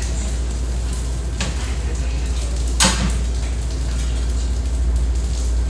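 Diner kitchen noise: a steady low hum with a hiss over it, and one sharp clank a little before the halfway point.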